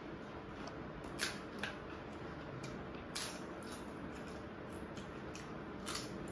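A few short, sharp crackles over a steady faint hiss: a crisp papad being broken and crunched while eating by hand.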